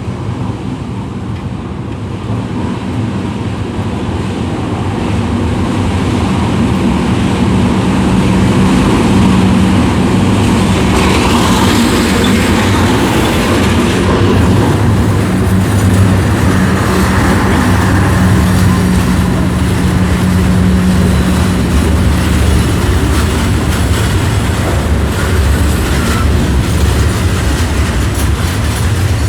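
A train hauled by a CC206 diesel-electric locomotive passing close by, its steady engine drone mixed with the rumble of wheels on the rails. It grows louder over the first several seconds, then holds loud.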